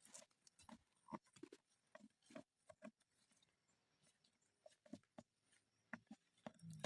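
Near silence with faint, scattered clicks and rustles of toy packaging being handled during an unboxing.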